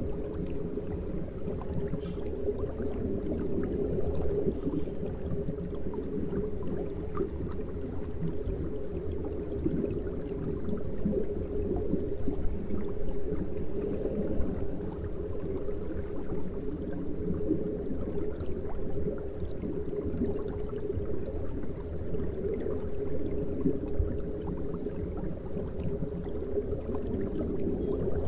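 Aquarium water bubbling and gurgling steadily, a low churning sound with small crackles and no pauses.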